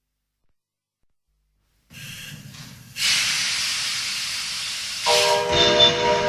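Electronic keyboard sound effect: silent for about two seconds, then a steam-like hiss comes in and grows much louder about a second later. About five seconds in, a held whistle of several steady tones at once, like a steam train's chime whistle, joins the hiss.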